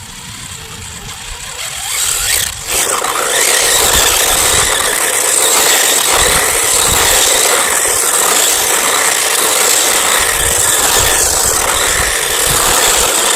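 Remote-control car running off-road: steady motor and tyre noise that swells about two and a half seconds in and then holds loud.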